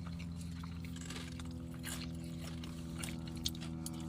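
Close-up wet chewing and mouth sounds of someone eating, with small clicks scattered throughout and one sharper click about three and a half seconds in. A steady low hum runs underneath.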